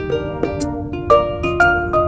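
Music: a quick melody of plucked notes, each starting sharply and fading.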